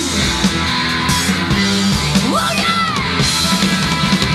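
Live rock music from a three-piece band, with semi-hollow electric guitar over bass and drums.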